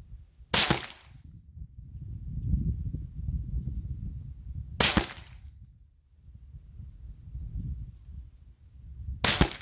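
Three single shots from a Marlin Model 60 .22 LR semi-automatic rifle, each a sharp crack, about four seconds apart.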